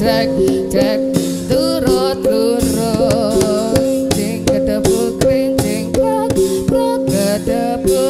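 Javanese gamelan music accompanying a jaran kepang dance: struck pitched metal percussion and drum strokes in a steady rhythm, with a singer's voice wavering over them.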